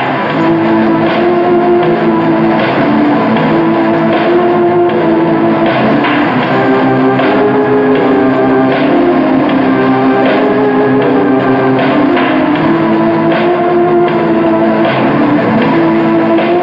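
Live rock band playing at full volume: electric guitars and drum kit, with a melody of long held notes over steady drum and cymbal hits.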